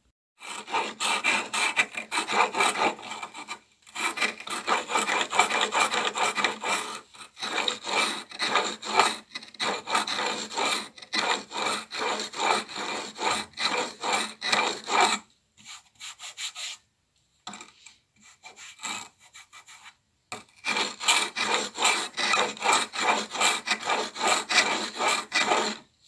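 Chisel blade in a honing guide being pushed back and forth on an oiled oilstone, steel scraping on stone in quick, even strokes, about two to three a second. The strokes pause for a few seconds midway, then resume and stop abruptly.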